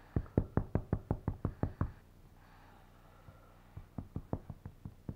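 Rapid knocking from a kitten's rough play, about seven knocks a second in two runs with a pause between, the second run softer.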